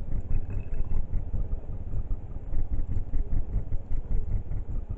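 Low, uneven rumbling noise with faint rustles, like background rumble on the microphone.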